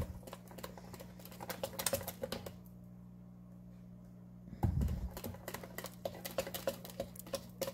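Metal wire whisk beating thick waffle batter in a bowl: rapid clicking and tapping against the bowl. The clicking stops for about two seconds while the whisk is lifted out, then starts again with a dull knock.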